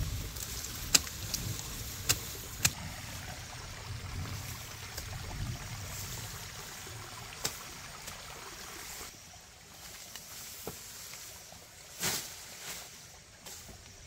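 A handful of sharp knocks, three close together in the first three seconds and more spaced out later, over a steady rustling hiss.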